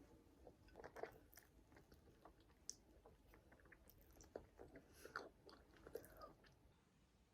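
Faint chewing and crunching of someone eating, a scatter of small bites and clicks.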